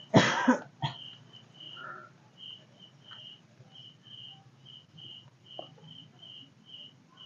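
Night insects chirping, a train of short high chirps repeating about twice a second. A brief loud burst of noise comes just at the start, with a click a moment later.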